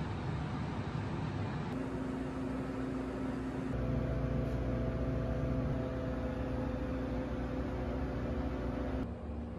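Steady electrical hum and hiss of refrigerated vending and ice machines, with a few held tones. The hum changes abruptly about two seconds in, again about four seconds in, and near the end.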